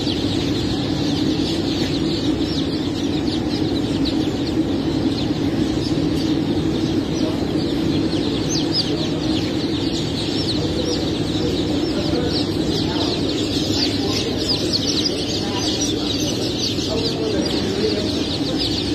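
Hundreds of crossbred chicks peeping in plastic crates: a dense chorus of short, high, falling cheeps, thickening in the second half, over a steady low hum.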